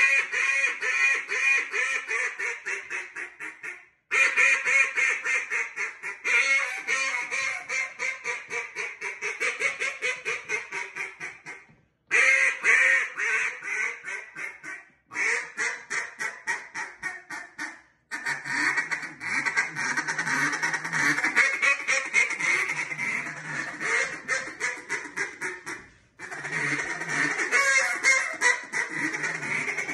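Duck call blown in long strings of rapid quacks. Each string starts loud and tapers off, with short breaths between sequences.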